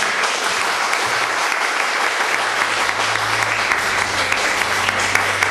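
Congregation applauding: many hands clapping together in a steady, even patter that keeps up throughout.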